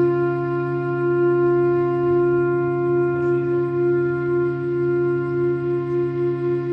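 Clarinet and trumpet holding long, steady notes together, with a lower sustained tone beneath, and a slight wavering in loudness.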